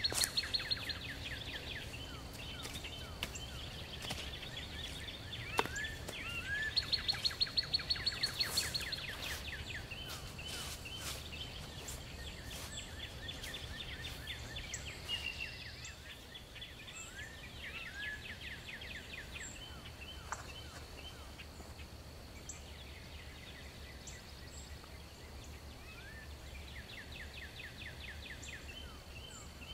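Songbirds singing: rapid trills of repeated notes, one song after another every few seconds, the loudest about seven seconds in, over a steady low background rumble.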